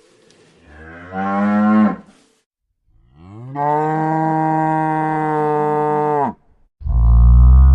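Bovine mooing, three separate calls: a short one rising in pitch about a second in, a long steady low call of about three seconds from the middle, and a louder, deeper call starting near the end. These are offered as sound effects for the Cebu tamaraw, a dwarf buffalo.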